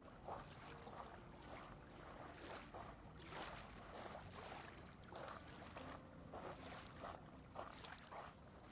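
Footsteps crunching on loose pebbles, coming closer and louder toward the end, over a steady hiss of wind and lapping lake water.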